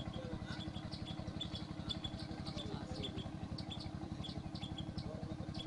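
A small engine running steadily with a fast, even low chugging.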